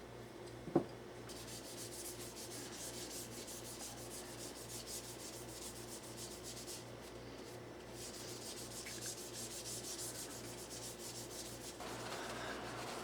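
Bakelite kitchen-utensil handle being rubbed by hand with a fine abrasive, in quick back-and-forth strokes, to give it a matte finish. A single sharp click comes just under a second in.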